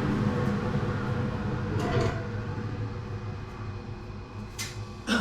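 Dust extractor blower running down after being switched off, its steady noise fading away. Two sharp knocks come near the end.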